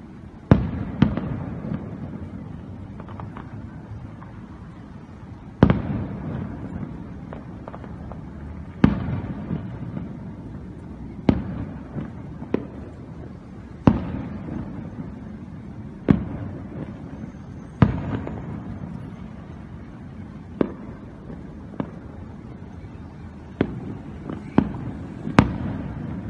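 Aerial fireworks shells bursting: a dozen or so sharp bangs a few seconds apart, some in quick pairs, each followed by a low rolling rumble.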